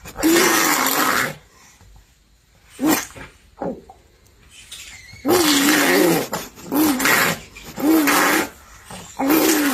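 An animal giving a series of harsh, noisy growling calls with a wavering pitch, about seven in all, each lasting up to about a second.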